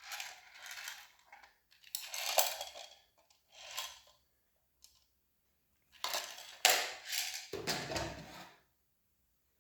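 Hands handling paintball marker magazines and parts: a series of separate plastic and metal scrapes and clacks, with a duller knock near the end.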